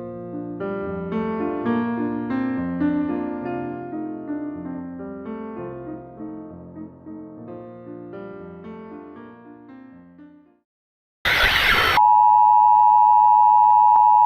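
Solo piano background music, a gentle run of notes that fades out. After a brief pause comes a short burst of static hiss, then a loud steady electronic beep tone.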